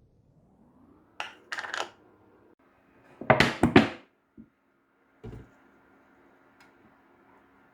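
Metal kitchen utensils and cookware clattering, in three clusters of short, sharp knocks over a faint steady hum.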